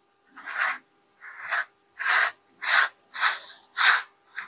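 Steel measuring tape inside an opened tape-measure case, turned round on its reel by hand: a short scraping hiss with each turn, about two a second.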